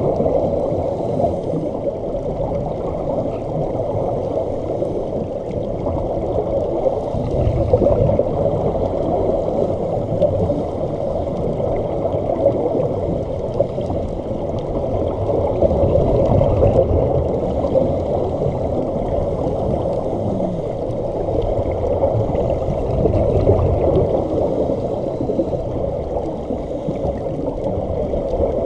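Muffled underwater rumble and gurgling from scuba divers' regulators and the bubbles they exhale, recorded underwater.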